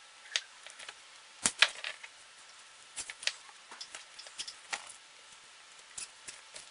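Cable ties being fastened around a car-stereo wiring harness: scattered light plastic clicks and ticks at uneven spacing, the sharpest about one and a half seconds in.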